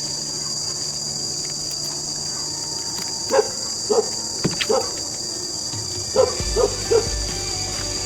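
A dog barking in two groups of three short barks, over a steady, high-pitched chorus of crickets or other insects.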